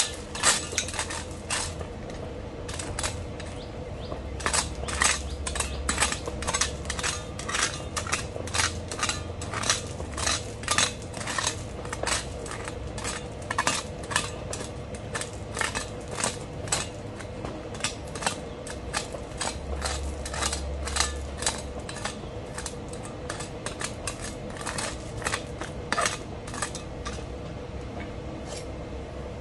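Gravel pebbles clinking and scraping as they are raked aside with a gloved hand and a cleaver blade while weeding: irregular sharp clicks and knocks, several a second.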